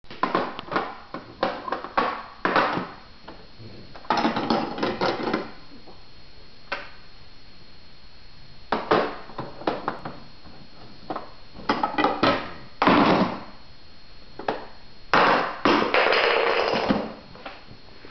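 Plastic shape blocks clacking, knocking and rattling against a toddler's plastic shape-sorter activity table as they are handled and pushed into its slots. The knocks come in irregular clusters, with a heavier thump about thirteen seconds in and a longer rattle near the end.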